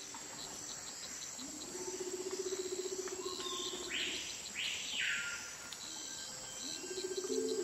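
Amazon rainforest insect chorus at dusk: a steady high-pitched drone with rapid repeated chirps. A low pulsing trill comes in twice, and a few falling calls sound about four to five seconds in.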